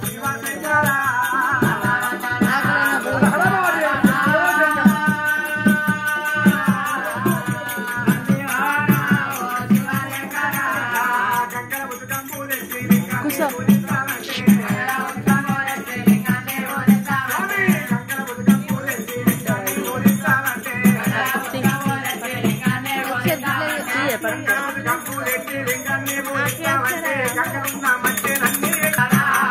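Oggu katha folk music: a melody line over a steady drum beat and jingling rattle-like percussion, with held notes a few seconds in.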